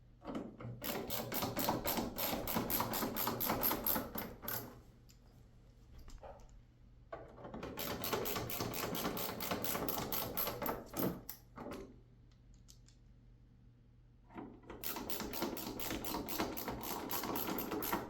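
The dryer's top bolts being driven in with a tool, heard as three bursts of rapid, even clicking, each a few seconds long.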